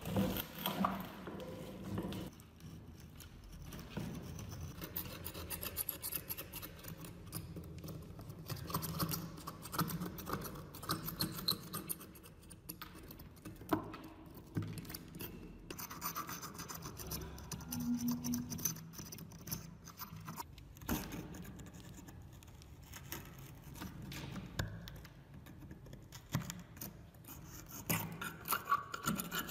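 Metal pick and spatula scraping and prying hardened dried mud off a rusty antique meat grinder, an irregular run of scratching with small knocks as clods of dirt break away and fall.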